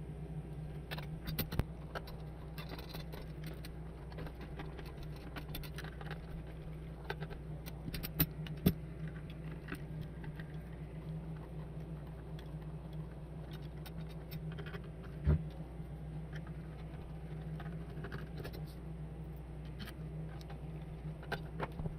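Scattered light clicks, taps and small rattles of hands handling the bench power supply's boards, screws and metal case during reassembly, with a few sharper knocks, over a steady low background hum.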